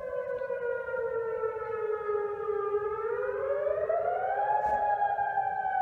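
Tsunami warning siren sounding in a test, very loud: one wailing tone that slowly falls, rises again about three seconds in, then begins to fall once more.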